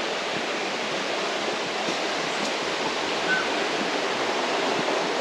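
Steady rush of river water flowing beneath the bridge, with a brief chirp about three seconds in.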